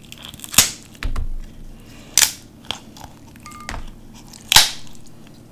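Seafood shells cracking and snapping as they are peeled apart by hand, close to the microphone: several sharp cracks, the loudest near the end.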